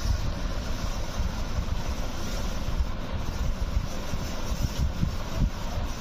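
Unbroken low rumbling and buffeting of air on the microphone, with no bird calls standing out.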